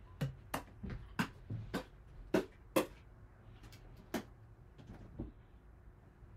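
Irregular knocks and clatter of objects being handled, about a dozen sharp strikes, clustered in the first four seconds with a couple more around five seconds in.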